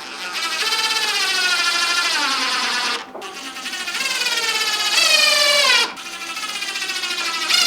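A young child crying in three long, wailing cries, each sliding slowly down in pitch, with short breaths between them near 3 and 6 seconds in.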